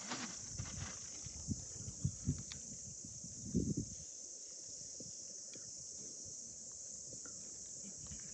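Steady high-pitched insect chorus, with a few soft low thumps from handling close by.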